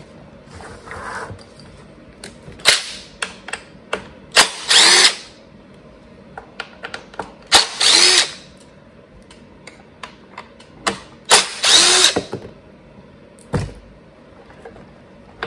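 Cordless impact driver with a T27 Torx bit backing out the three screws that hold on a Stihl blower's rewind starter cover, in three short runs about three to four seconds apart. Small clicks of handling come between them.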